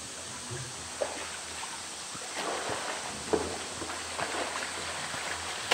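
Pool water sloshing and splashing as a polar bear moves against the pool wall. It gets louder from about two seconds in, as the bear rears up out of the water, with a few short splashes.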